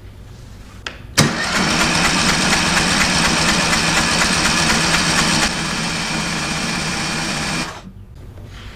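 Electric starter cranking the Bandit SG-40 stump grinder's twin-cylinder engine with both spark plugs out, so it spins over evenly without compression, to prime the oil system. It starts abruptly about a second in, drops a little in loudness partway through, and stops after about six and a half seconds.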